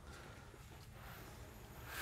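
Near silence: faint room tone, with a soft swell of handling noise near the end.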